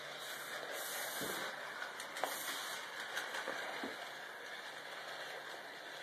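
Bachmann Hogwarts Express model train running around its track: a steady, faint whirring hiss with a few light clicks and knocks.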